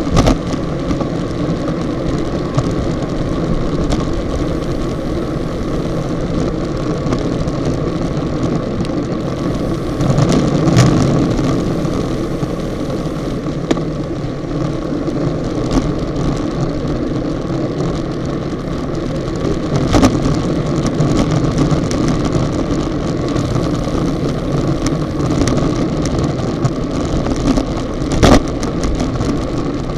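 Steady wind rush and tyre-on-asphalt noise on a bicycle-mounted action camera's microphone at about 40 km/h, among a group of racing bicycles. A few sharp knocks break in, a few seconds apart.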